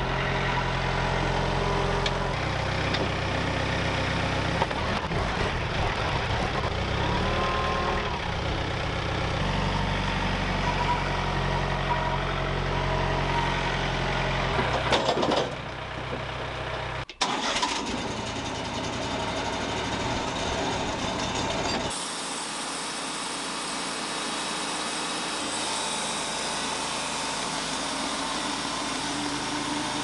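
Compact tractor engine running, its speed changing a few times. About halfway through it gives way to the steady running of a portable band sawmill.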